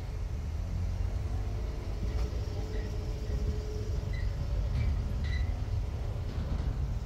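Steady low rumble of vehicle engines running, with a few short faint high beeps about four to five seconds in.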